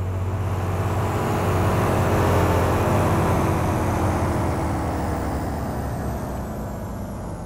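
Contemporary chamber ensemble with amplified instruments and electronics playing a dense, noisy sustained mass over a low steady drone, with several pitches gliding slowly downward. It swells to a peak about two and a half seconds in and then slowly fades.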